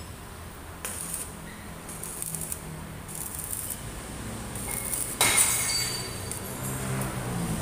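Metal hand tools clinking and knocking against a car engine and transaxle that are being taken apart, with one sharp metallic knock about five seconds in.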